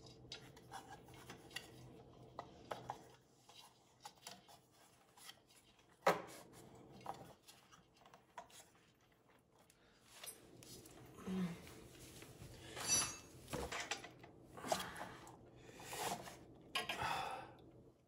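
Faint, intermittent metal clicks and scraping as a replacement air-compressor pressure switch is turned by hand onto the Teflon-taped threads of its manifold fitting, with a sharper click about six seconds in.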